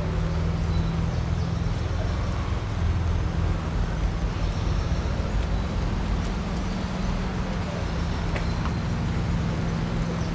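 City street traffic: a steady low rumble of vehicle engines.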